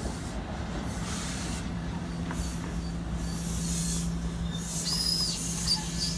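NJ Transit multilevel passenger coaches rolling past at close range, with a steady low hum and rolling noise. A brief high squeal comes near the end.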